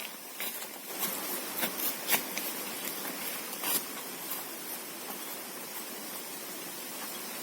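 Strong wind blowing in a steady hiss, with a few sharp clicks and taps in the first few seconds.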